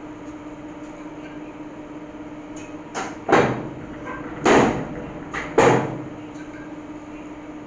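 Platen press running with a steady hum, its bed closing and opening in one press cycle with three loud metallic clunks about a second apart.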